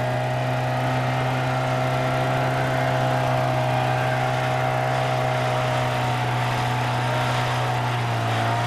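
A boat's motor running steadily under way, a constant low hum with a droning whine above it and a hiss of water and wind; the pitch sags slightly near the end.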